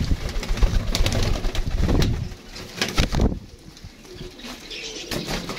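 A flock of young domestic pigeons cooing, with many sharp clicks and rustles over the first three seconds, then quieter.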